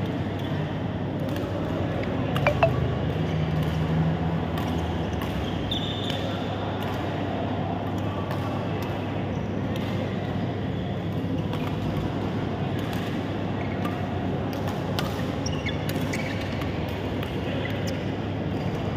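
Indoor badminton hall ambience: a steady hum of wall fans and room noise, with scattered sharp clicks and squeaks of rackets striking shuttlecocks and shoes on the courts, the loudest a little over two seconds in.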